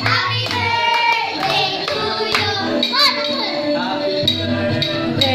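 Children and adults singing a birthday song together, with hand clapping along.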